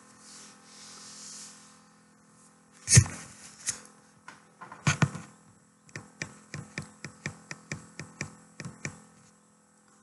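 A loud sharp knock about three seconds in and another about five seconds in, then a run of sharp, evenly spaced clicks, about three a second, lasting about three seconds.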